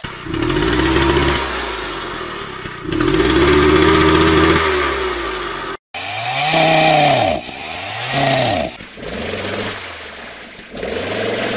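Chainsaw engine sound effect edited into variations. First it is slowed down, two long deep revving swells. After a brief cut about halfway through it is played in reverse. In the last few seconds its pitch repeatedly bends up and down in a warbling twirl effect.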